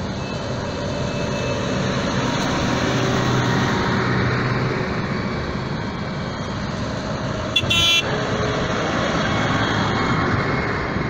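Diesel engines of a line of tractors running as they drive past one after another, with a short horn toot a little past halfway through.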